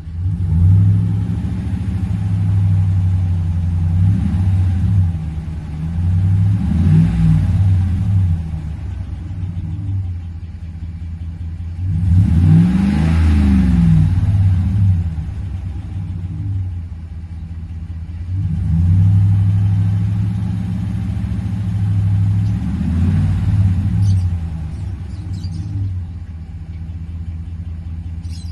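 Chrysler 5.7 HEMI V8 engine idling and being revved several times, its pitch climbing and falling back each time, the biggest rev about halfway through. The engine is one with a reported ticking noise.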